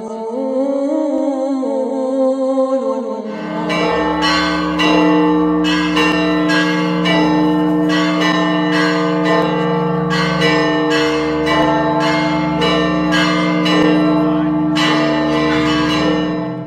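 A man's chanted call to prayer (adhan) fades out about three seconds in, giving way to church bells ringing: a rapid, evenly repeated run of strikes over a steady ringing hum that stops at the end.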